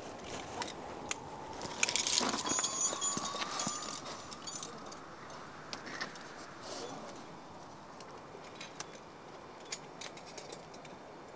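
Metal climbing hardware, carabiners and gear racked on a climber's harness, clinking and jangling in a burst about two seconds in, with scattered single clicks after it over a steady faint hiss.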